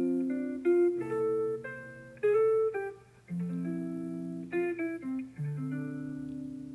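Background music: a plucked guitar playing a run of single notes and chords, each struck and then fading.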